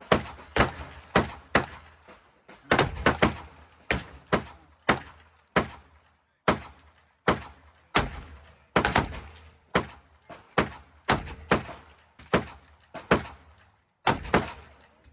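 Rapid gunfire: about two dozen sharp shots in quick succession, roughly two a second, some coming close together in pairs, with short pauses about six seconds in and near the end.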